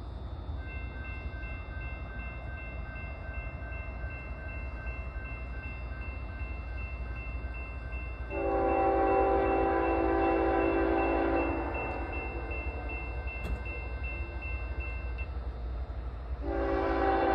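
Diesel freight locomotive's air horn sounding a chord: one long blast about eight seconds in that lasts about three seconds, and a second blast starting near the end.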